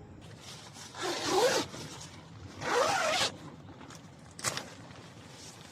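Zipper pulled in two long rasping strokes, then one short quick one about four and a half seconds in, typical of a tent door zipper being worked.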